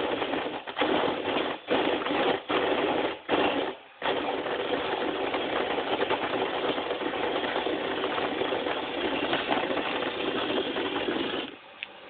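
Cordless drill spinning a manual coffee grinder to grind coffee beans. The drill whirs in several short runs with brief stops over the first four seconds, then runs steadily and stops about half a second before the end.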